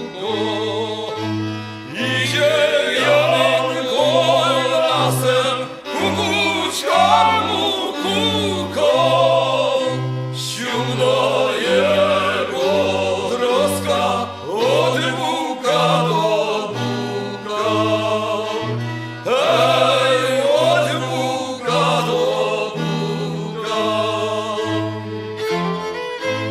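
Background music: a song with singing voices over bowed strings and a bass line that steps from note to note.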